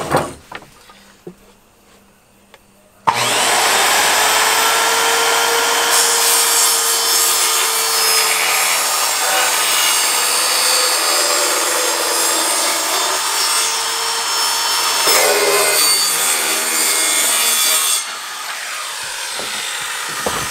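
Makita circular saw starting up about three seconds in and cutting through plywood with a steady, loud sawing noise over the motor's whine. The sound drops sharply to a quieter level about three seconds before the end, as the saw comes off the board.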